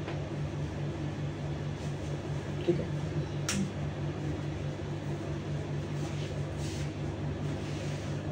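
Steady low background hum with a regular pulsing throb, room tone in a small room. A few faint scrapes and taps run through it, with one sharp click about three and a half seconds in.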